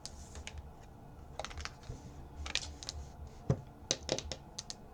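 Tarot cards being handled and shuffled: scattered, irregular light clicks and snaps of card stock.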